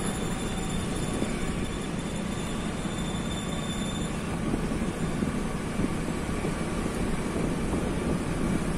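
Steady rumble of riding along a city street in traffic: engine and road noise with no sharp events.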